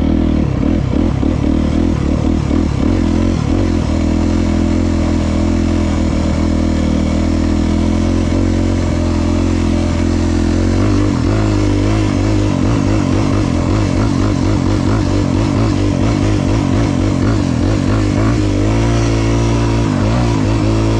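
A Honda CRF250R four-stroke single-cylinder motocross bike heard from on board, the engine running hard under throttle as it is ridden along a dirt track. Its note shifts about halfway through and again near the end as the rider works the throttle.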